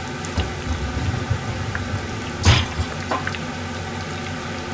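Wakasagi (pond smelt) tempura deep-frying in a pan of oil, a steady bubbling sizzle with small scattered crackles. The sizzle is already dying down, the cue that the pieces are nearly done. One louder sharp crackle or knock comes about halfway through.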